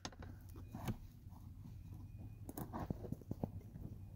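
Faint, scattered small clicks and scrapes of a hand tool against the metal power seat track while fishing out a dropped screw, over a low steady hum.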